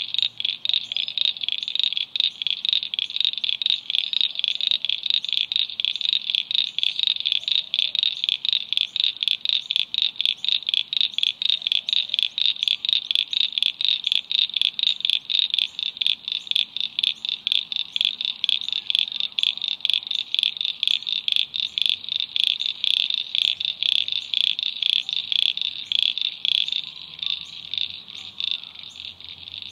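A frog calling over and over in a rapid, even train of short high-pitched pulses, about three a second, easing off slightly near the end.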